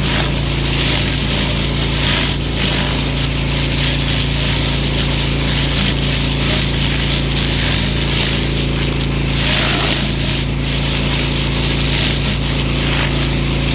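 Pressure washer running: its motor hums steadily underneath while the hiss of the water jet on the surface swells and fades every second or two.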